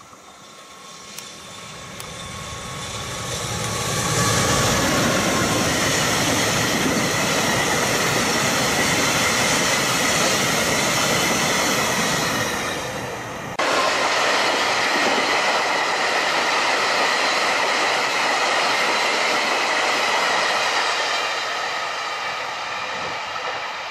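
Freight train hauled by an EF210 electric locomotive, with a long rake of tank wagons, passing close by. The noise of wheels on rail builds over the first four seconds to a steady, loud rush. It sags briefly, jumps back abruptly about two-thirds of the way through as the tank wagons roll past, then eases off near the end.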